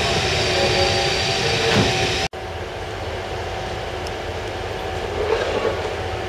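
Train running noise heard from on board a train moving slowly through a station: a steady rumble with a hum, and a few faint wheel clicks. The sound drops out for an instant about two seconds in, then resumes at a lower level.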